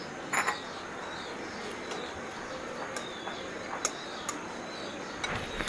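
Steady hiss of a fish curry simmering in an iron karahi on a gas stove, with a few sharp clinks of a metal spatula against the pan. One clink comes about half a second in, and a few more come in the last two seconds.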